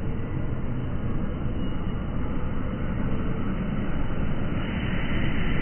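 School bus engine running with a steady low rumble as the bus pulls slowly forward in street traffic, growing louder near the end.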